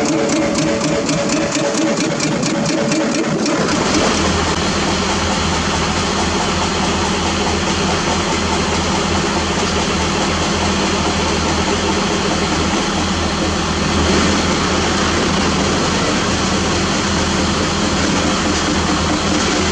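Diesel engines of hydraulic excavators running as they load rock into a dump truck. About four seconds in the sound changes abruptly to a Mitsubishi Fuso dump truck's diesel engine running steadily.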